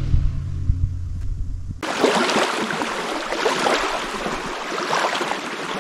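A distant motorboat engine droning low and steady across the water. About two seconds in it cuts off abruptly, giving way to small waves lapping and splashing on a sandy shore.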